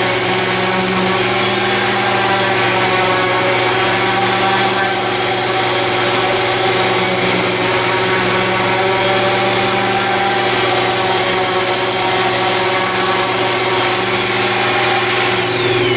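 DeWalt DWE6421K corded random orbit sander running steadily with a Diablo hook-and-loop sanding disc against a wooden guitar body, a loud even motor hum with a high whine on top. Near the end the high whine begins to fall in pitch.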